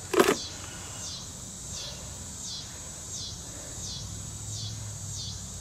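A brief knock about a quarter second in, as a small battery is set down in the scooter's battery tray. Then insects call steadily, each short call falling in pitch, about one every three-quarters of a second.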